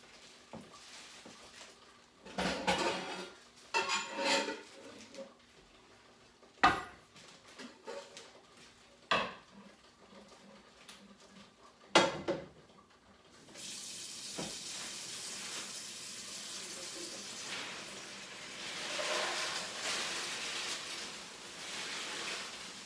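Pots and pans clattering, with a few sharp knocks as cookware is taken out and set down. From about halfway through, a kitchen tap runs steadily into a pot, filling it with water.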